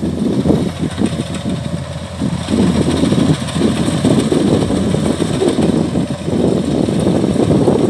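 Kubota combine harvester's diesel engine running steadily as the machine harvests rice, a continuous low rumble.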